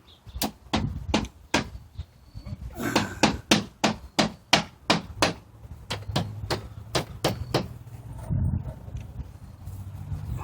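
Hammer driving nails to fasten vinyl siding: runs of sharp strikes, about three a second, with short pauses between runs.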